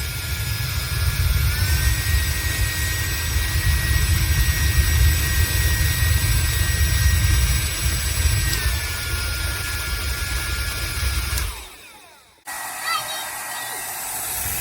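Dxliwky 1875W ionic hair dryer running, its airflow buffeting the microphone with a low rumble over a thin motor whine. The whine steps up in pitch about a second and a half in and back down around nine seconds in. The sound drops out near the end, then resumes more quietly.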